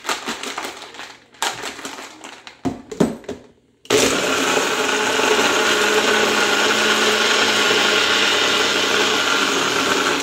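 Irregular knocks and clatter for the first few seconds. Then, about four seconds in, a personal single-serve blender starts and runs steadily, blending ice with milk and coffee, and stops abruptly at the end.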